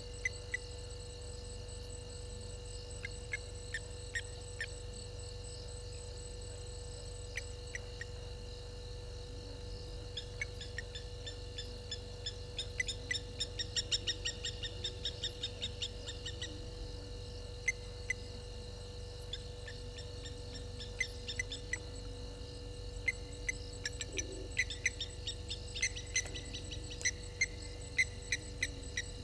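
Night insects chirping in short clicking trills, sparse at first and thickening into dense runs about halfway through and again near the end, over a steady faint hum.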